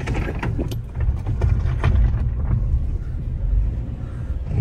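Inside the cabin of an MG Astor crawling over a rough dirt road in second gear: a steady low rumble of tyres and engine, with irregular knocks and clicks from the suspension and gravel, most frequent in the first half.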